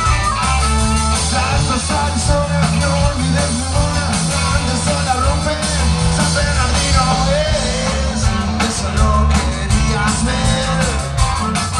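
Live rock band playing loud and steady, with electric guitars and drums, and a voice singing over the band.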